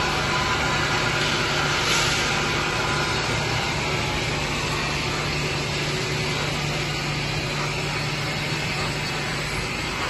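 Bottle capping and conveyor line machinery running: a steady low machine hum under an even mechanical whir.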